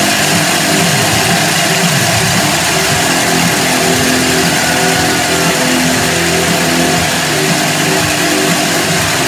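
Loud, unbroken stadium crowd din: fans cheering and ringing cowbells as the team takes the field.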